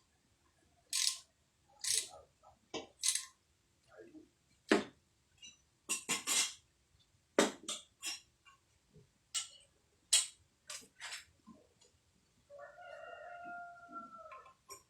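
A rooster crows once, a held call of about two seconds near the end. Before it comes a string of sharp clicks and knocks, typical of tools and engine parts being handled on a bench.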